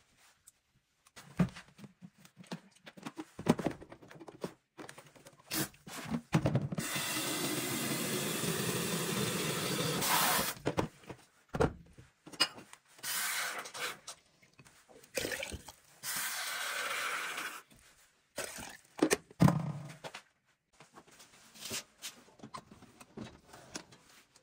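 Kitchen tap running into a stainless-steel sink in several bursts, the longest about three and a half seconds, among scattered knocks and handling sounds.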